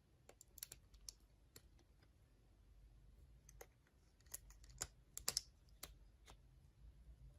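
Slime being pressed and worked by hand, giving faint, irregular sticky clicks and pops.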